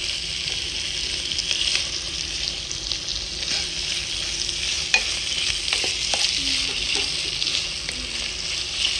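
Beef pieces dry-roasting in coconut oil with curry leaves, sizzling steadily in a coated pan while a wooden spatula stirs and scrapes them, with a few light knocks.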